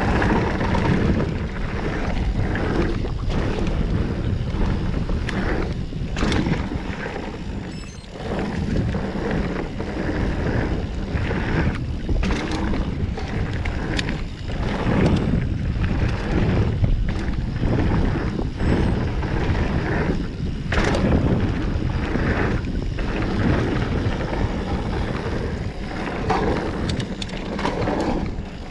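Mountain bike riding down dirt singletrack: wind buffeting the action camera's microphone over the rumble of knobby tyres on dirt, with scattered sharp clicks and rattles.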